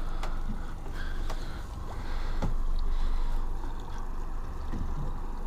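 Boat engine running steadily at low speed, a constant low rumble with wind and water noise, broken by a few light knocks on the hull or deck.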